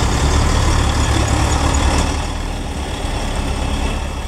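Heavy truck engine idling with a steady low rumble, easing off a little about two seconds in.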